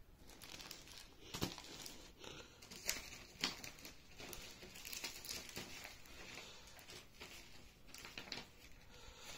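Sheets of printed paper being handled and swapped: faint crinkling and rustling, with a few sharper crackles in the first few seconds.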